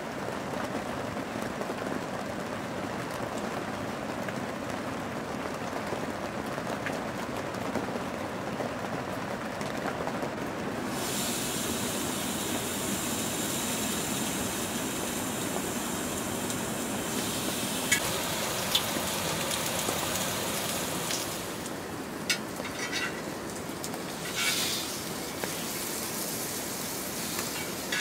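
Steady rain falling on a tent. About eleven seconds in, a bright sizzle starts as strips of meat cook on a hot grill pan over a gas burner. In the last third, a few sharp pops and clicks come from the spitting fat and the tongs on the pan.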